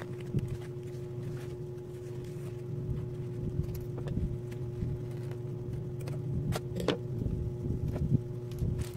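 A woven polypropylene rice sack rustling and crackling as it is handled and folded, with sharp ticks now and then, over a steady low mechanical hum.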